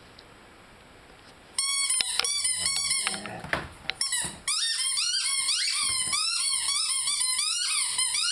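Rubber squeaky toy squeaked over and over by a Rhodesian Ridgeback chewing it. The squeaks start suddenly about a second and a half in and run almost without a break from about four seconds in, each one a short high squeal that bends up and down in pitch.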